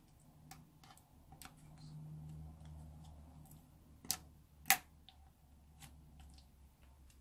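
Scattered light clicks and taps from small objects being handled, with two sharper clicks a little after halfway, over a faint low hum.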